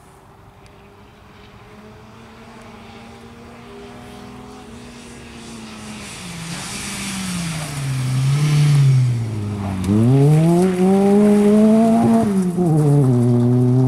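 Rally car engine approaching from a distance, growing steadily louder. Its note dips and climbs several times as it comes close, then drops sharply near the end and settles at a loud, steady run.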